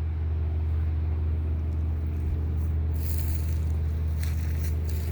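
A steady low engine drone, even in level throughout, with brief rustling noises a few seconds in.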